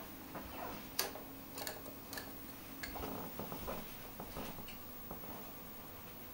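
Darts being pulled out of a bristle dartboard and gathered in the hand: a few sharp clicks, the loudest about a second in, followed by soft handling sounds.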